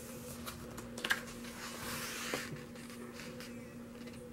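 Photobook page being turned by hand: a few sharp paper clicks about a second in, then a swishing rustle as the page goes over, with smaller paper ticks after. A steady low hum sits underneath.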